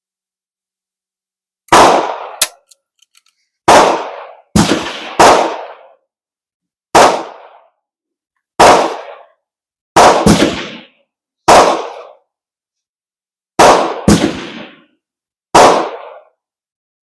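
About a dozen gunshots in irregular succession, some only a fraction of a second apart, each sharp crack trailing off in a short echo. Shots this close together come from several guns firing on a shooting range.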